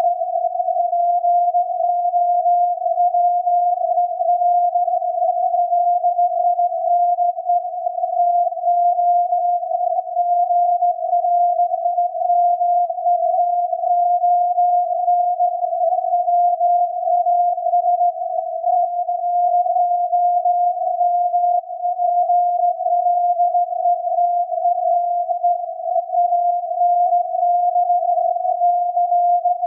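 SAQ Grimeton's 17.2 kHz VLF transmission from its Alexanderson alternator, picked up on a loop antenna and SDR receiver and heard as a steady, unbroken tone near 700 Hz inside a narrow band of rough, fluttering noise.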